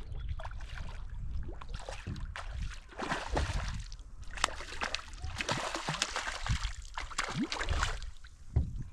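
Water splashing and sloshing in irregular bursts as a hooked trout thrashes at the surface while being played in on a fly line.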